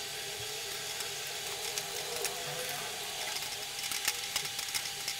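Bread cubes deep-frying in hot oil in a stainless steel kadai: a steady sizzle, with crackling pops growing more frequent in the second half as the bread fries toward golden.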